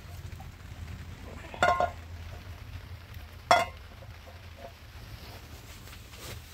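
Two loud metallic clinks with a brief ring, the first a quick double knock about one and a half seconds in and the second about two seconds later, over a steady low hum.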